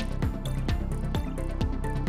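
Background music with a steady electronic beat: deep falling bass thumps about twice a second under lighter, quicker percussion.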